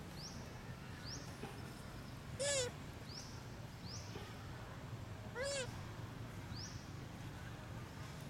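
Two short, rising-then-falling monkey calls about three seconds apart, typical of a long-tailed macaque's coo or cry, over a faint repeated high chirp about once a second.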